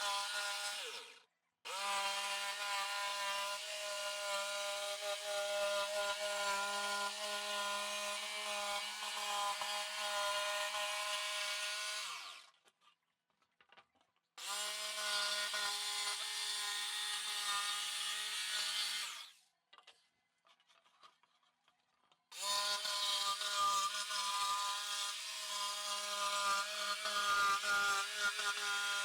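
Electric jigsaw cutting an OSB board: a steady motor whine under the rasp of the blade. It starts and stops several times, with pauses of two to three seconds between cuts.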